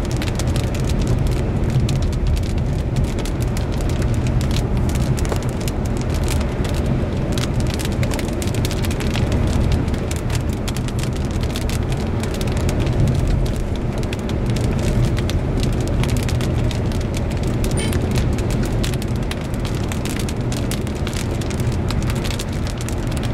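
Car driving with the windows up: a steady low rumble of engine and road noise, with many raindrops tapping on the body and glass.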